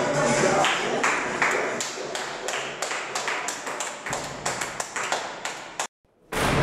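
One person clapping hands, a run of claps that gets faster, cutting off suddenly near the end.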